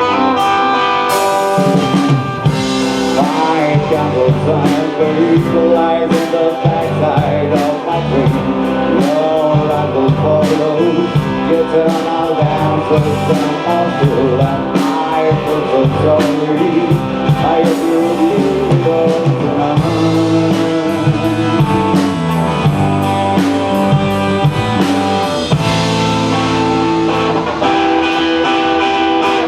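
A rock band playing live: electric guitar over bass and a drum kit keeping a steady beat.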